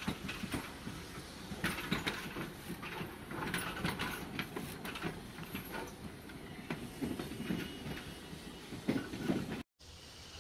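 Hiroshima Electric Railway streetcar running past close by: a low running rumble with irregular clattering knocks of the wheels on the track. The sound cuts off abruptly about a second before the end and gives way to quieter street ambience.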